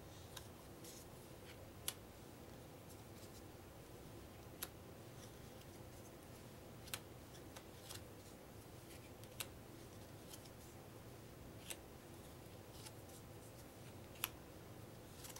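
Cardboard game cards handled one at a time off a small pile on a wooden table: a sharp short card click every two to three seconds, about six strong ones with a few fainter ones between, over a faint steady hum.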